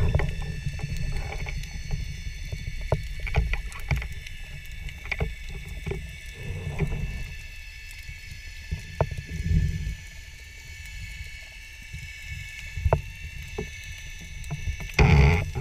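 Underwater sound through a GoPro's waterproof housing: a low, muffled rumble of moving water that swells and fades, with scattered sharp clicks and knocks, and a brief louder rush near the end.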